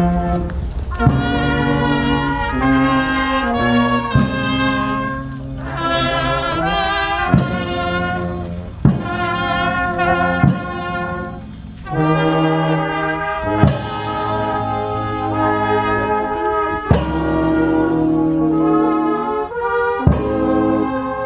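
Marching brass band with trumpets and lower horns playing a slow funeral march in held chords that change every second or two, with a drum struck now and then.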